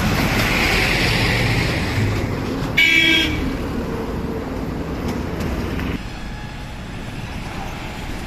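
Traffic noise as a flatbed semi-trailer truck rolls slowly past close by, its tyres and engine loud, with a short vehicle horn toot about three seconds in. The traffic noise drops a little after about six seconds.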